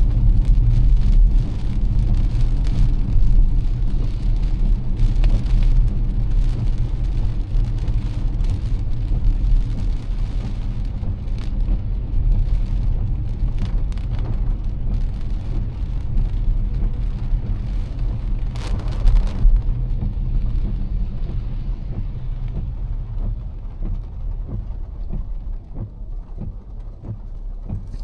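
Car driving through heavy rain: a steady low road and engine rumble under the hiss of tyres on wet pavement and rain. The hiss thins out and the sound gets quieter over the last several seconds.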